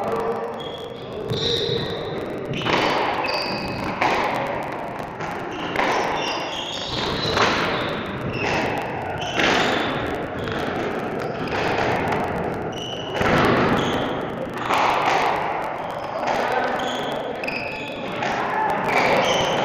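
Squash balls being struck and hitting court walls, a sharp echoing thud about once a second in a large hall, with voices in the background.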